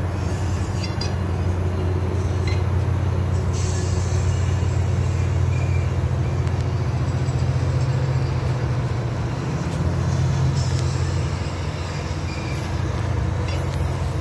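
Amtrak diesel locomotive running with a steady low rumble as the train pulls out of the station.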